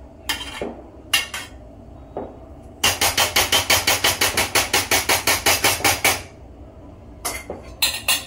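A metal spoon tapping rapidly against a stainless-steel mesh strainer, about seven sharp taps a second for some three seconds, knocking stuck topping out onto the rice. There are a few single clinks of metal on metal before and after the run.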